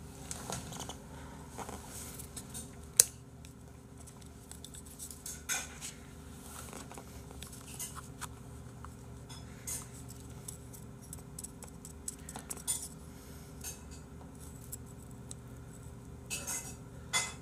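A spoon clinking and scraping against a small bowl during eating, in scattered light clicks, with one sharp clink about three seconds in.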